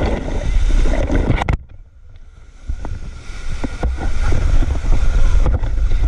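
Rushing river water and wind buffeting the microphone on a raft in white water. The noise drops sharply about a second and a half in, then builds back up, with a few light knocks in the quieter stretch.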